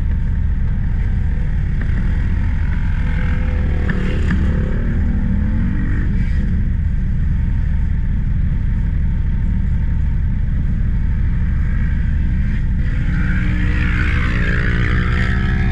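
Can-Am Maverick X3's turbocharged three-cylinder engine running, heard from inside the cab over a heavy low rumble, with the pitch rising briefly a couple of times, about four seconds in and again near the end.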